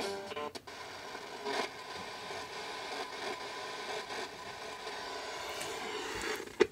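Hissing static from a Sylvania boombox radio tuned between stations, with brief snatches of sound in the first half-second.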